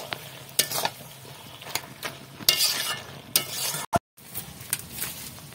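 Flat metal spatula scraping and stirring a thick vegetable mash in a metal kadai, in irregular strokes over a faint sizzle. The sound cuts out briefly about four seconds in.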